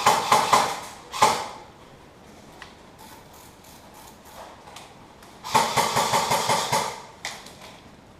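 Airsoft electric guns (AEGs) firing full-auto bursts, a rapid mechanical rattle of shots: about a second of fire at the start, a short burst a moment later, then a longer burst of about a second and a half after five seconds.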